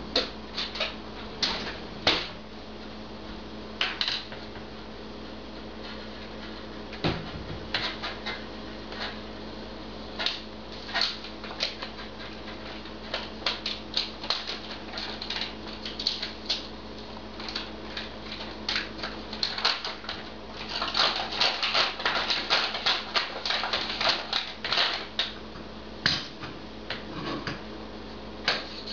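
Moose browsing on a willow shrub: irregular sharp snaps and crunches of twigs being broken off and chewed, thickening into a rapid run of crunching about 21 seconds in. A steady low hum runs underneath.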